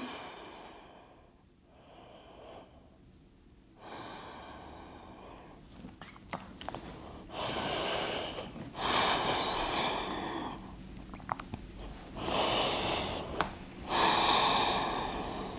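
A person taking slow, deep breaths in and out: several long, noisy breaths, the louder ones in the second half, with a few small clicks between them.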